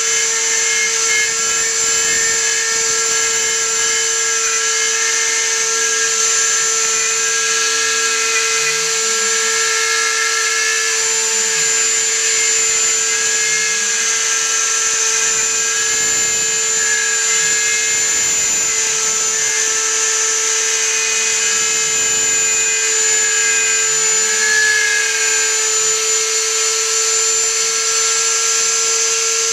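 Homemade CNC machine cutting a wooden sign: the spindle runs with a steady high whine as the bit cuts the board. Beneath it, low tones glide up and down over and over as the machine's axes speed up and slow down.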